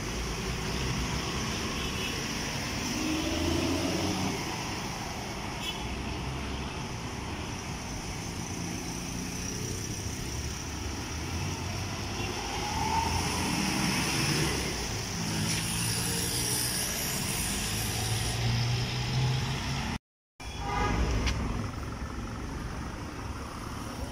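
Roadside street noise: vehicles passing steadily, with a horn sounding now and then. The sound drops out completely for a moment about twenty seconds in.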